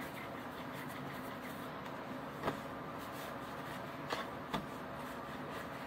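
Steady background hum with a few light knocks from hands and pretzel dough on a granite countertop while a dough rope is rolled and handled: one about two and a half seconds in, then three close together about four seconds in.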